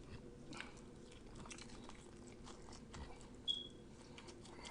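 Faint chewing of T-bone steak, with soft scattered mouth clicks and one brief high squeak near the end.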